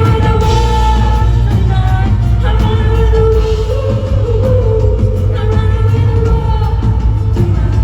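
Live band music with heavy drums and bass, and a woman's voice singing long held notes over it.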